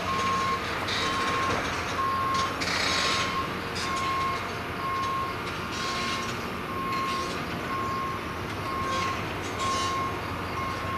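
Reversing alarm of a construction machine beeping steadily about once a second, over a running engine, with rough scraping noise that swells now and then, loudest about three seconds in.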